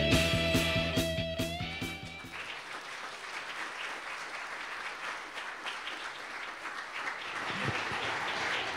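A song with a steady beat ends on a held note about two seconds in, and an audience then applauds.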